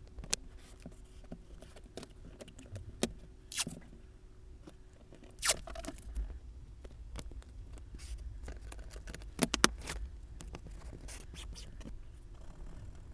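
Masking tape being handled and laid along the edges of a board: irregular scrapes, rips and taps, a few louder ones scattered through.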